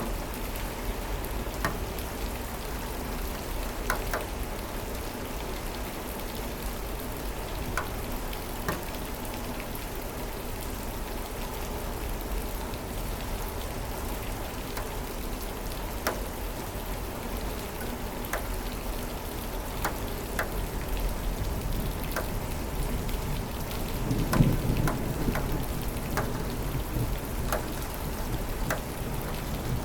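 Steady rain falling, with individual drops ticking sharply here and there. A low rumble of thunder swells about three-quarters of the way through.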